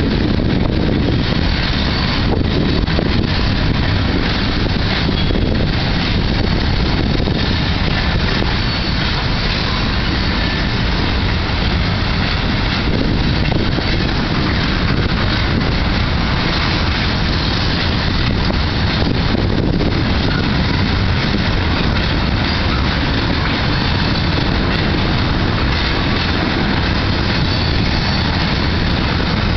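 Freight cars of a mixed freight train rolling past: a steady, unbroken rumble of wheels on the rails.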